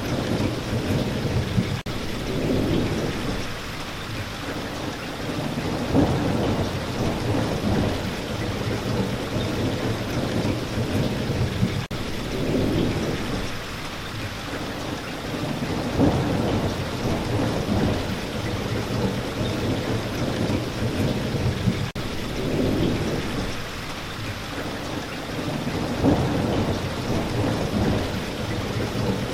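Steady heavy rain with low rolling rumbles of thunder swelling up every few seconds, the pattern repeating about every ten seconds.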